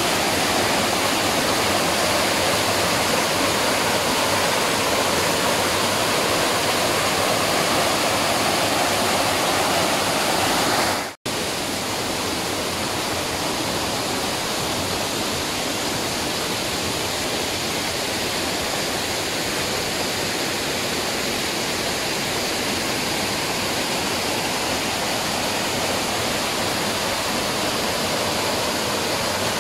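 Waterfall rushing with a steady sound of falling water. The sound cuts out for an instant about 11 seconds in, then carries on slightly quieter.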